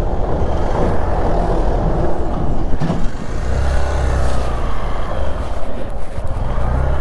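Motorcycle riding along with wind rushing over the microphone. A deeper, steady low drone comes in about halfway through.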